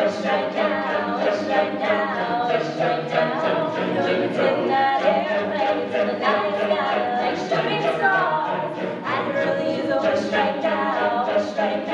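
Mixed-voice a cappella group singing in harmony over a steady beat.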